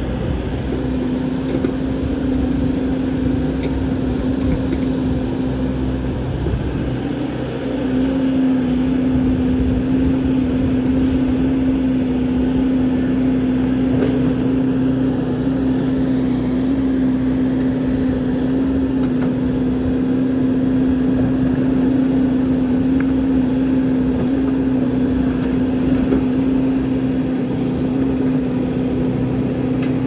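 A big backhoe's engine running steadily under work, giving a constant drone that wavers and dips briefly about seven seconds in.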